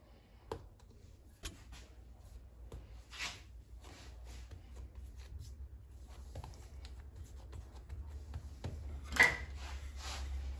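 Hands working at a kitchen counter: soft rubbing and handling noises with scattered light knocks, and one louder sharp knock about nine seconds in.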